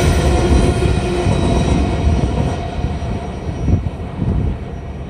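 Wheels of the last empty coal hopper cars of a freight train rolling over the rails, fading steadily as the train moves away. A thin wheel squeal dies out in the first couple of seconds.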